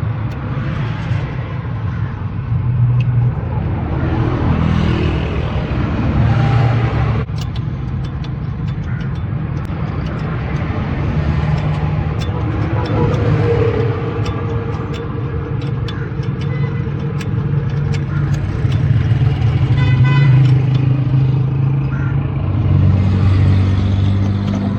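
A diesel vehicle engine running steadily, with scattered light clicks over it.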